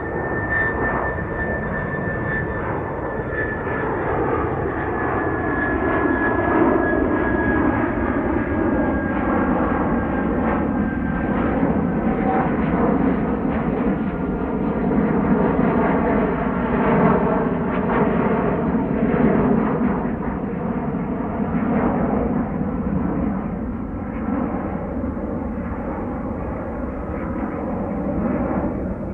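Twin-engine jet airliner flying overhead: a steady low rumble with slowly shifting bands, and a faint high whine that slowly falls in pitch during the first ten seconds or so.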